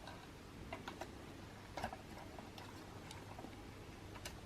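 Small plastic toy parts being handled: a few scattered light clicks and taps, the loudest about two seconds in.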